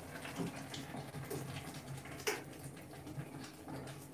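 Brown paper bag rustling as ground egusi is shaken out of it into a cooking pot, a soft, irregular scratchy patter with one sharper tap a little after two seconds in.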